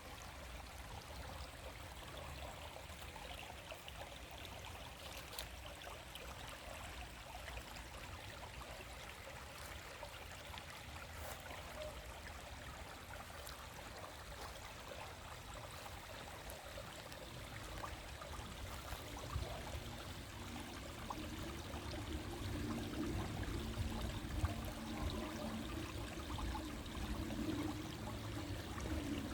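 Shallow stream flowing and trickling steadily over its bed, a continuous babble of running water that grows a little louder and fuller in the last third.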